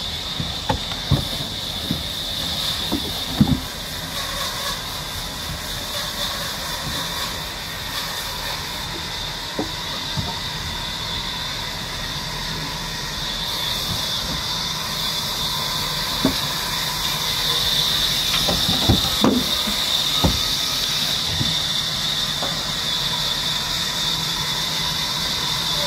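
A log being hauled by a winch's wire rope over a pile of logs: a steady high machine whine and hiss, with scattered sharp wooden knocks as the log bumps and drops over the logs beneath it, a cluster of them about three-quarters of the way through.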